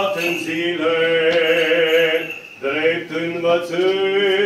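Men chanting an Orthodox liturgical response in long held notes, with a short break between phrases about halfway through.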